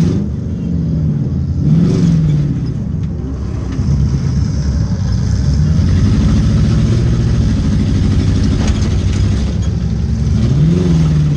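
Demolition derby car's engine running loud and rough, revving up and dropping back several times: near the start, about two seconds in, and again near the end as the car manoeuvres.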